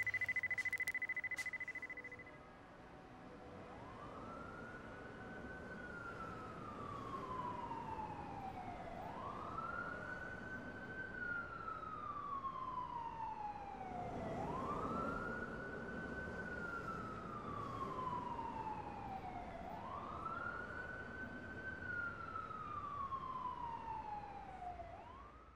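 Police siren wailing: each cycle rises quickly and then falls slowly over about four and a half seconds, four full cycles with a fifth just starting when it cuts off near the end. It grows louder over the first dozen seconds, as if approaching. A steady high tone fades out in the first two seconds.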